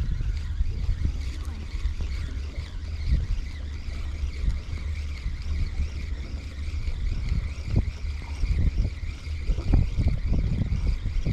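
Wind buffeting the camera microphone: a steady low rumble with gusty thumps that grow stronger in the second half.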